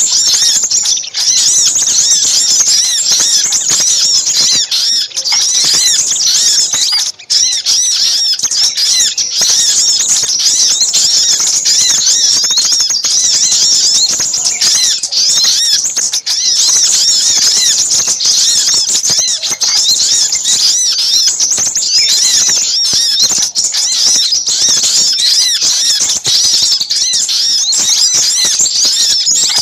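A bird-lure recording of small songbirds: sogok ontong and sepahraja calling together in a dense, unbroken, noisy chatter of rapid, high-pitched notes.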